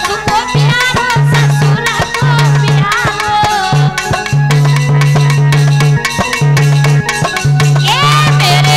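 Live Indian folk-song music: an electronic keyboard carries a wavering melody over a low sustained tone, with fast, dense drum strokes throughout.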